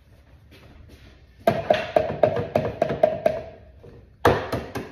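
An egg tapped against the rim of a mixing bowl to crack it. There is a quick run of about eight taps, about four a second, each with a short ringing note from the bowl, then three more taps near the end.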